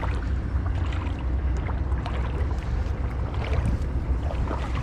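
Wind buffeting the microphone, a steady low rumble, with faint rustling and light ticks over it.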